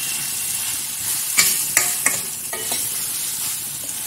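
Pumpkin chunks, onion and tomato sizzling in oil in a steel pan while a metal spoon stirs them. The spoon clinks and scrapes against the pan about five times, starting about a second and a half in.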